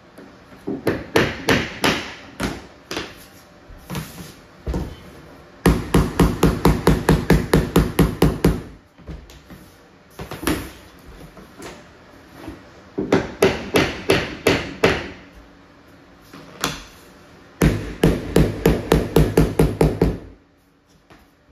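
Hammer tapping a vinyl plank along the wall to lock its click joint into place, in several quick runs of sharp taps, about six a second.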